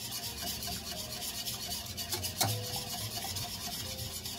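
Wire whisk beating a thick cream cheese and milk sauce in a stainless steel saucepan: a fast, steady scraping rhythm, with one sharper clink against the pan about two and a half seconds in.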